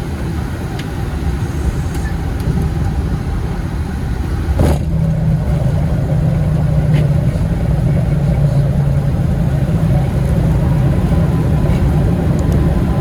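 Cockpit noise of a Boeing 737 MAX just after touchdown, rolling down the runway: a steady low rumble of wheels, airflow and engines. About four and a half seconds in there is a single thump, and from then on the rumble is louder.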